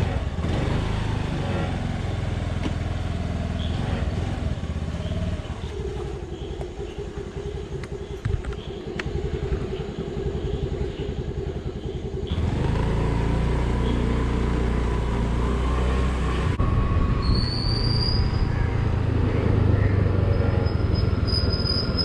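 Honda Activa 125 scooter's single-cylinder engine running as the scooter rides along, with road and wind noise. The sound changes abruptly a couple of times.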